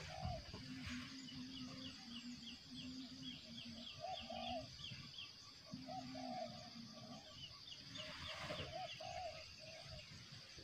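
Faint birdsong: short low calls repeated over and over, with runs of quick high chirps from a smaller bird a couple of seconds in and again near the end.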